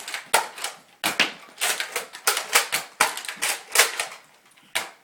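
Nerf foam-dart blasters being fired, an irregular run of sharp clacks and pops about two to three a second.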